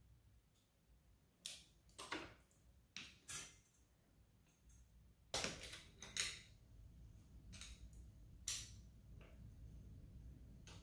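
Hand tools clinking on bare engine metal: scattered sharp clicks and clanks, some in quick pairs, as a torque wrench with socket is fitted to the flywheel nut and a screwdriver is braced against the flywheel.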